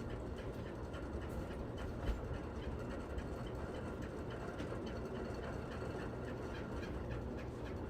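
Aliseu Terral electric fan running steadily with a regular clicking, about four ticks a second, over the whir of the motor and blades: the unwanted noise the fan is making.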